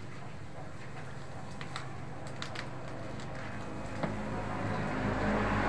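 A motor vehicle's engine on the road, growing steadily louder from about four seconds in as it approaches. Before it, a low steady background with a few light clicks.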